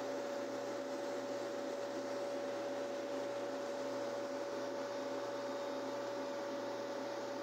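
Steady drone of ice-plant refrigeration machinery running, with a constant humming tone over an even mechanical noise.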